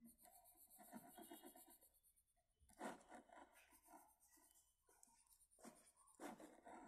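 Faint scratching of a coloured pencil shading on workbook paper, in rapid short strokes.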